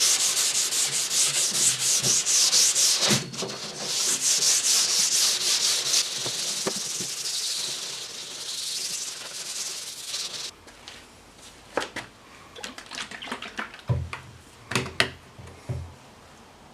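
Sanding by hand in quick back-and-forth strokes for about ten seconds, with a short pause partway through. Then a few light knocks and clicks as the work stops.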